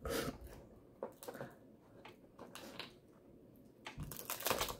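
Crab leg shells cracking and crackling as they are broken open by hand: scattered sharp clicks, with a louder cluster of cracks near the end.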